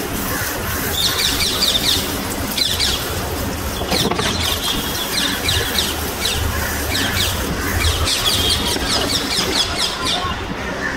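A stream of water pouring and splashing onto the gravel soil of a freshly repotted bonsai, stopping near the end. Over it, birds chirp in quick, high, squealing bursts, over and over.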